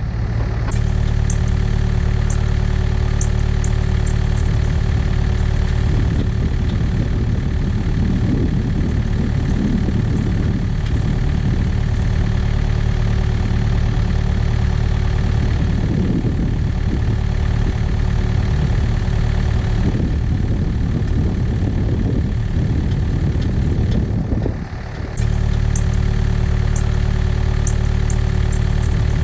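Takeuchi excavator's diesel engine running at a steady speed, with a short dip in level near the end.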